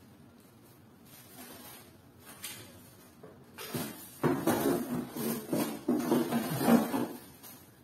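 Rummaging through packaging and kitchen items while searching for a blender's lid. After a quiet start with a faint click, there are about four seconds of irregular rustling and knocking as things are moved about.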